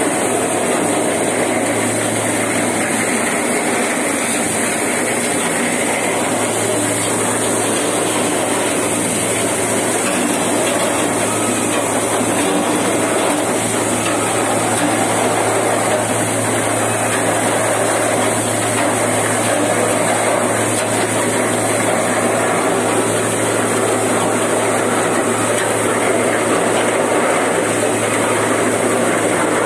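Petkus 541 seed cleaner running steadily: a constant mechanical rattle over a low hum, with grain streaming through the machine.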